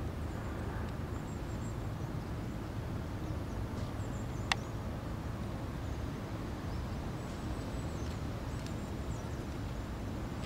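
Steady low wind noise on the microphone in open air, with faint, high bird chirps now and then and a single sharp click about halfway through.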